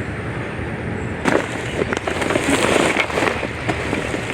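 Crackling, rustling and light knocks of soil and dry potato plants being handled in a plastic 5-gallon bucket, starting about a second in, over a steady background hiss.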